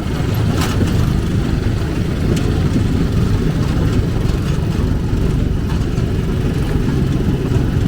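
A vehicle engine running steadily, a continuous low rumble.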